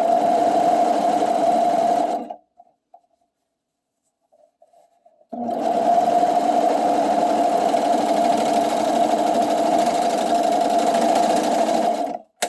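Coverstitch sewing machine stitching in two steady runs: about two seconds, a stop of about three seconds, then about seven seconds more before it stops near the end.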